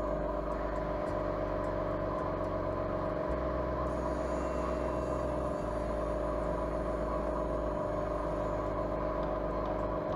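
Small airbrush compressor running with a steady, even hum.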